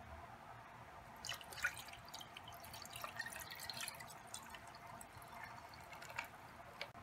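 Water poured from a plastic container into a glass jar, splashing and trickling onto the rocks and leaves inside. It starts about a second in and stops just before the end.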